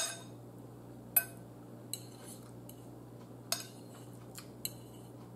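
A metal fork clinking against a bowl, five or six sharp separate clinks spread over a few seconds as food is picked at with it.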